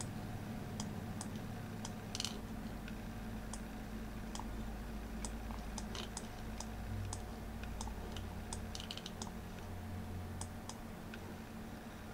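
Light, irregular clicks at a computer, about one or two a second, over a low steady hum.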